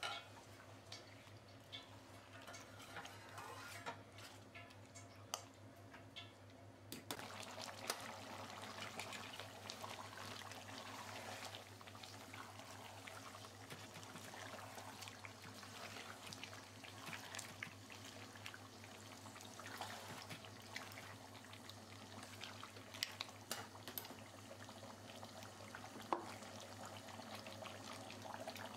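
Chicken pieces cooking in spiced curry sauce in a pot, a faint sizzle and bubble, with scattered clicks and scrapes of a spoon against the pot. The cooking sound grows fuller about seven seconds in.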